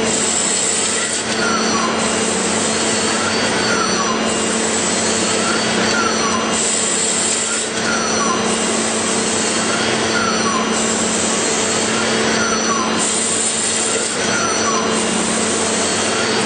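CNC machine running with a steady hum, a short rising-then-falling whine repeating about every two seconds as it cycles through the same motion.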